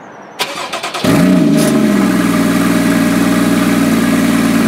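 Porsche Cayman S flat-six engine starting: a few quick clicks of cranking, then it catches about a second in, flares briefly and settles into a steady idle.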